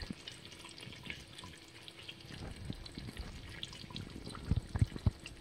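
Thick beef pasanda gravy simmering in a pan, with small pops and crackles throughout. Near the end come a few louder low plops as bubbles burst in the thick gravy.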